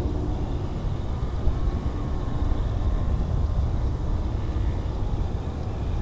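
Wind buffeting the microphone in a steady low rumble, with the faint, thin whine of a distant electric RC model plane, a ParkZone BF-109G with a two-blade propeller, flying overhead. The whine strengthens a little near the end as the plane comes closer.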